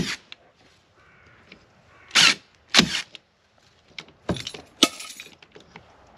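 Makita DST221Z 18 V cordless stapler firing about five times at irregular intervals, each a short sharp shot, driving staples through plastic mesh into wood. The staples are set flush without breaking the netting.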